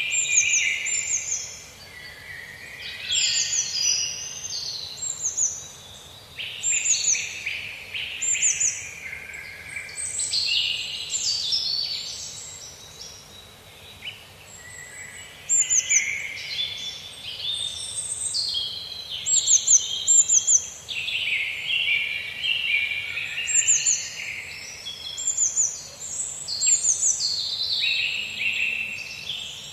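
Several songbirds singing and chirping at once in overlapping waves, with quick high down-slurred notes and lower rapid trills, over a faint steady background hiss.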